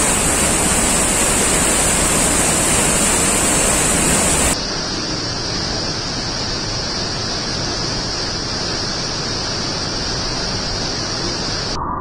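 A 15 m high, high-flow waterfall pouring into its plunge pool: a steady rush of falling water. About four and a half seconds in it becomes a little quieter and duller, and it is muffled near the end.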